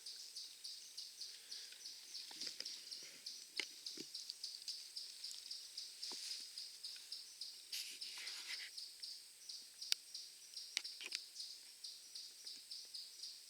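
Crickets chirping steadily in an even, rapid pulse, with a few sharp clicks and brief rustles in between.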